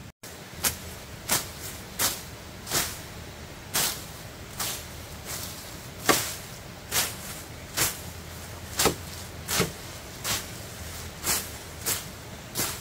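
A steady rhythm of short swishing strokes, a little more than one a second, each a quick rush of hiss.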